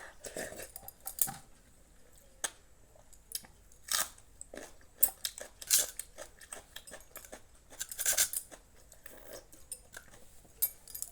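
A person eating a meal: chewing and crunching, with scattered short clicks and taps and a few brief louder bursts.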